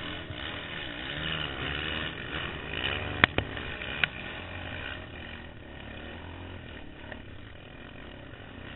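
Racing quad (ATV) engine revving up and down over rough ground, its pitch rising and falling again and again. There are three sharp knocks about three to four seconds in, and then the engine runs lower and steadier.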